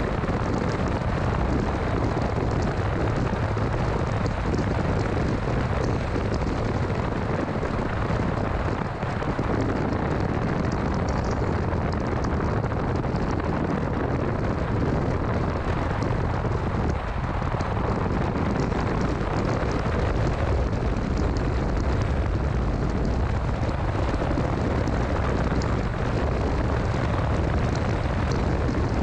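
2006 Mini Cooper S driving at a steady pace: a continuous low rumble of road, tyre and wind noise, with no clear engine note standing out.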